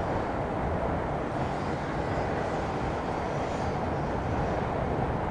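Steady rumble of two electric commuter trains running side by side: a JR East E235-series Yamanote Line train and an E233-series Keihin-Tohoku Line train.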